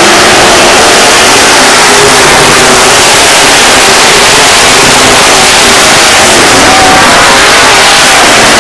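A pack of dirt-track modified race cars running hard around the oval, many engines overlapping in a loud, unbroken wall of engine noise with a wavering pitch as the cars rev through the turn.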